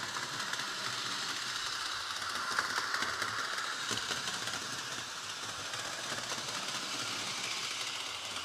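HO-scale model diesel locomotive pulling one car around a small oval at full throttle: a steady whir of its small electric motor and gears, with faint clicks of the wheels over the track joints.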